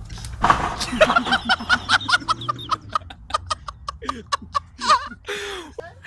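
A chicken clucking in a rapid run of short, repeated calls.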